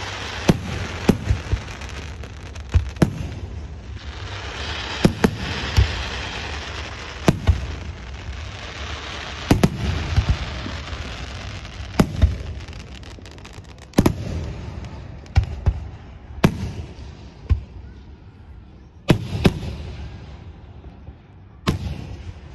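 Aerial firework shells bursting: a string of about fifteen sharp bangs at irregular spacing, mostly a second or two apart and sometimes in quick pairs, with a hiss between them that is strongest in the first half.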